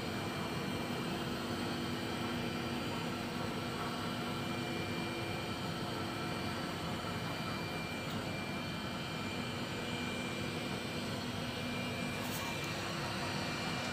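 Window-cleaning robot's suction fan running with a steady whir, holding the robot against the glass as it moves across the pane.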